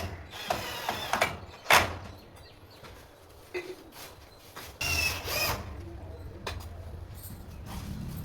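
A handheld power tool, drill-like, running in short stretches with a steady low hum. There are a few sharp knocks in the first two seconds, the loudest just under two seconds in.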